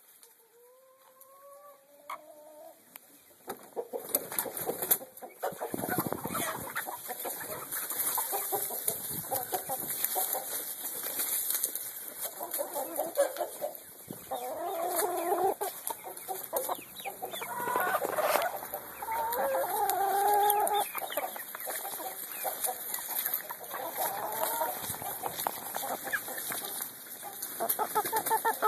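A flock of domestic hens clucking and calling continuously, faint at first and louder from about four seconds in, with many small clicks among the calls.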